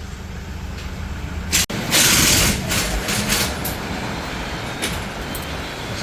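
Motor vehicle engine rumbling steadily, with a loud burst of hissing about two seconds in and a few short hisses after it.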